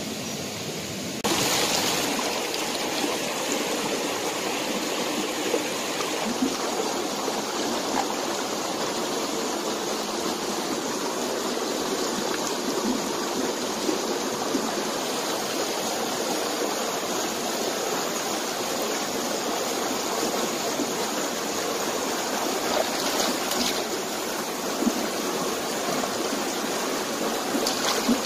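Stream water rushing steadily over rocks, an even, constant rush that steps louder about a second in.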